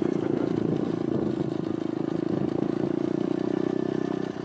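Electric dirt bike running under way: a steady drone from its motor and drive. It drops off sharply near the end.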